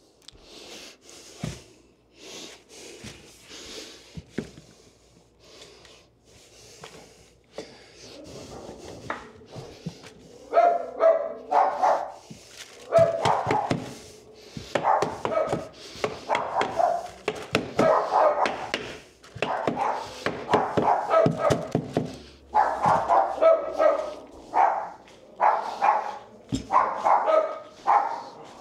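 A dog barking over and over, loud and rapid from about ten seconds in. Before that there are only quieter scattered knocks.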